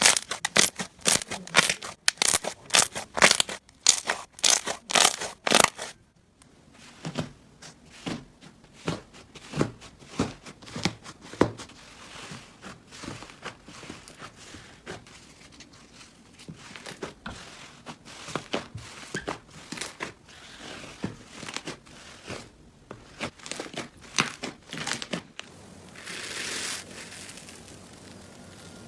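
Hands squeezing and working slime, giving dense, crisp crackling clicks for the first few seconds. It then cuts to quieter, scattered crackles and pops, and near the end to a softer, hissing texture.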